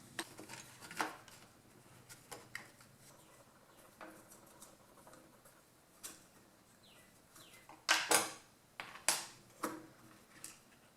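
Scattered metallic clicks and knocks of hand tools working on a small two-stroke engine as its ignition coil is taken off, with a few louder clanks about eight to ten seconds in.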